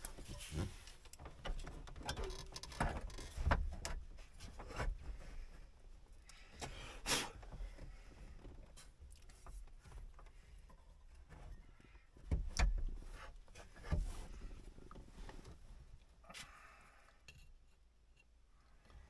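Scattered knocks, clicks and rustling as the welder's control box and its wiring are handled and fitted into a vehicle dashboard, with a few louder knocks, the loudest about twelve seconds in.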